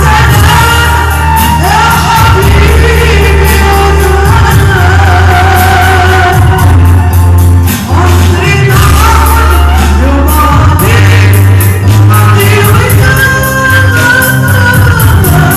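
Live Arabic pop song: a woman sings over a band, with a heavy, steady bass line.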